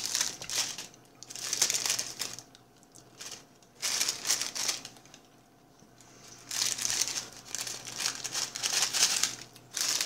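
Paper wrapper crinkling as it is handled and unwrapped, in several bursts with short pauses between.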